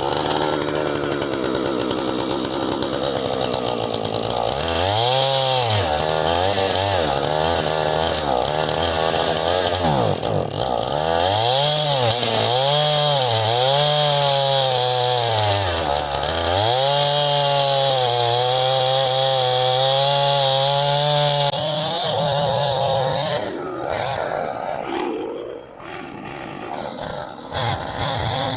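Husqvarna two-stroke chainsaw cutting heavy limb wood at high revs, its note sagging under load in the cut and climbing back again and again. It is running strong, with the stale gas burned out. Near the end the saw's steady note drops away.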